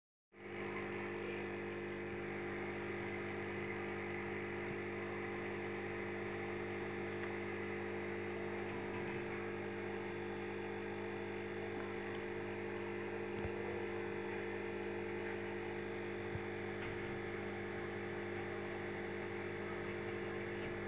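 Aquarium air pump humming steadily, an even mains-frequency drone with no change.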